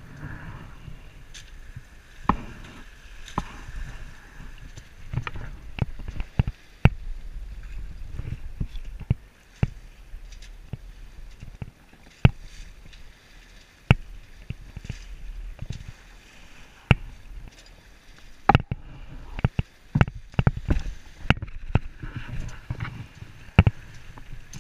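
Sailboat under way under sail: a low rumble of wind and water, broken by many irregular sharp knocks and clicks, with a thicker cluster of knocks about three quarters of the way through.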